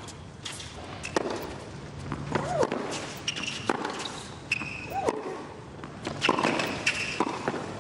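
Tennis rally on a hard court: racket strikes on the ball roughly once a second, short player grunts on some shots, and sharp squeaks of tennis shoes on the court surface.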